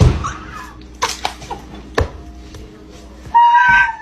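A sudden heavy thump, then a couple of sharper knocks, and near the end a loud, high-pitched cry held on one pitch.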